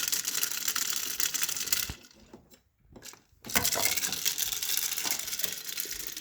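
Dense crackling, clicking rattle from a children's toy coffee maker being worked. It breaks off for about a second, two seconds in, then resumes.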